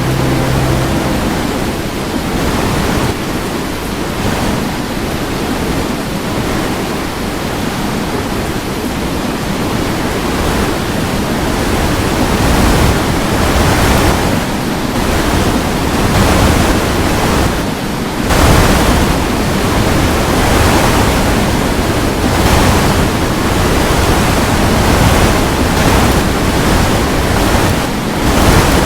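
Strong wind rushing over the microphone, swelling and easing in gusts, with a sudden short lull about eighteen seconds in.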